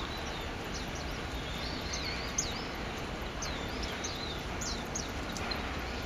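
A mixed flock of small songbirds calling: many short, thin, high chirps that bend up or down, several a second and overlapping, over a steady low background noise.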